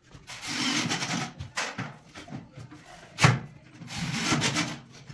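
Cordless drill driving screws into a wooden loft-cupboard frame in two bursts of about a second each, with a sharp knock on the wood a little over three seconds in.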